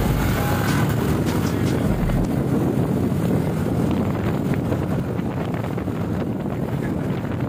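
Steady wind rushing over the microphone of a motorcycle riding at speed, with vehicle running noise underneath.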